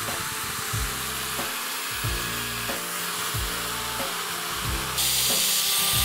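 Electric drill with a long thin bit boring holes through the plastic washing-machine tub, heard as a steady high whir that grows louder about five seconds in. Background music with a steady beat plays under it.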